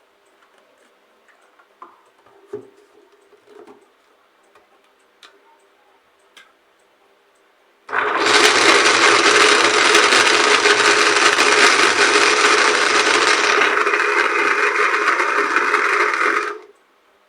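A few light knocks and clicks, then an electric blender grinding chopped ginger, bitter kola and garlic in lime water. The blender starts abruptly about eight seconds in, runs loud and even for about eight and a half seconds, turns duller about six seconds after starting, and cuts off suddenly.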